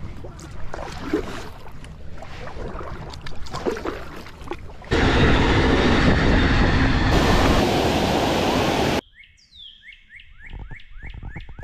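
Water lapping against a kayak. Then a bilevel passenger train rushes past loudly for about four seconds and cuts off abruptly. After that, a bird repeats quick down-slurred chirps, about four a second.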